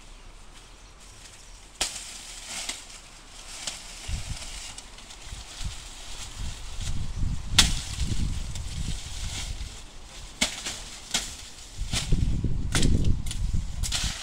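Hoe chopping into soil and dry maize stalks: irregular sharp chops a second or more apart, with the dry stalks crackling and rustling as they are broken and pulled.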